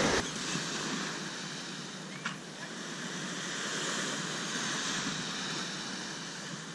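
Small waves washing onto a sandy beach: a steady surf hiss that swells a little midway, with a brief sharp sound about two seconds in.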